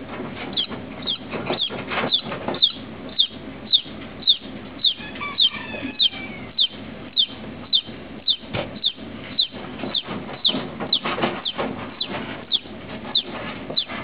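Chick peeping: short, high peeps that fall in pitch, repeated about twice a second.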